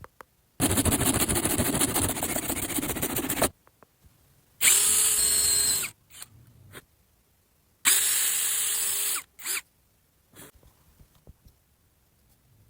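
Power tool running in three spells: a rough stretch of about three seconds, then two shorter runs of about a second and a half each with a high whine on top.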